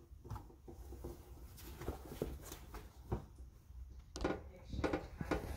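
Soft rustles and light knocks of handling, scattered at first and louder and more frequent from about four seconds in.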